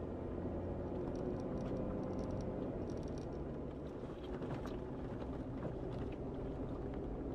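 Jeep Wrangler Rubicon driving slowly over a snow-covered dirt track, heard from inside the cab: a steady low engine hum with tyre and road noise and a few faint ticks and rattles.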